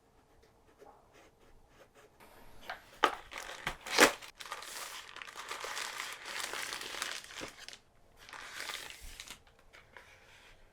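Keyboard packaging being handled and crinkled: a couple of sharp snaps about three and four seconds in, then a long stretch of crinkling and a shorter second burst of it near the end.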